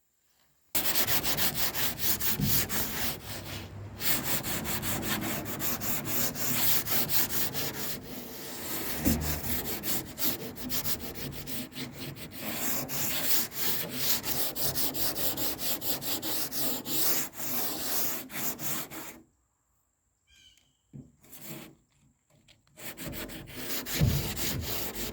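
Sanding on the body of a 1978 Ford pickup: a dense, fast scraping of many quick strokes that starts about a second in, stops for a few seconds with a few small knocks, then picks up again near the end.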